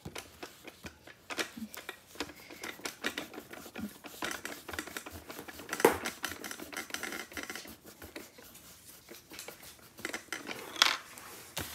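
Rubber eraser scrubbing back and forth on notebook paper, a rapid scratchy rubbing as pencil writing is erased. A sharper knock comes about six seconds in and another near the end.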